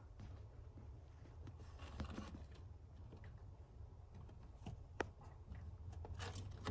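Faint scratching and ticking of a fancy mouse's claws on a wire mesh platform and a cardboard house, with one sharp click about five seconds in, over a steady low hum.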